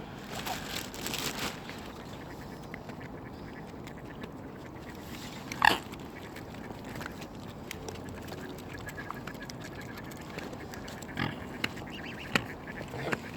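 Waterfowl calling at close range, with one short, louder call about halfway through, over scattered small clicks and taps.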